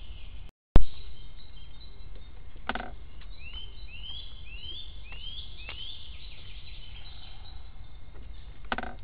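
Wild birds singing in bare spring woodland, a run of short rising chirps about three to six seconds in, over a steady low outdoor rumble. A brief dropout and a sharp click just under a second in, where the recording cuts to a new clip, is the loudest sound, and two short harsh sounds come at about three seconds and near the end.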